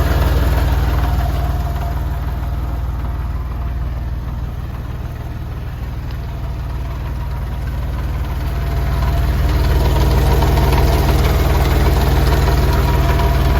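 Porsche 996 Carrera 4's flat-six engine running steadily at idle, its drone easing a little in the middle and swelling back near the end. The owner has filmed it because an abnormal noise has come back.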